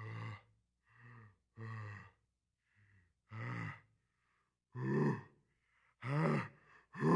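A man's short voiced sighs and gasps, about seven in a row roughly a second apart, growing louder toward the end.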